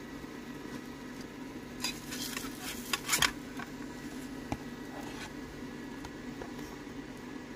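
Metal spatula scraping across a nonstick frying pan as it slides under a fried egg, loudest about three seconds in, followed by a single click. An electric fan hums steadily underneath.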